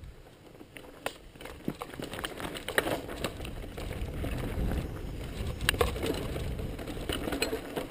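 Mountain bike rolling over a rough, rocky dirt trail: a steady low rumble from the tyres and riding, with scattered sharp knocks and rattles from the bike over stones and roots.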